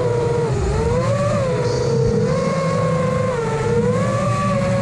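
Motors of a 5-inch FPV quadcopter, Emax Eco 2306 brushless motors with three-blade props, whining in flight. The pitch rises and falls as the throttle changes.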